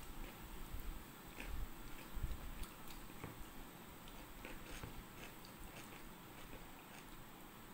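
Faint sounds of eating a rice meal by hand: chewing and mouth sounds, with small clicks and rustles of fingers mixing food on the plates. A few soft low bumps come in the first two and a half seconds.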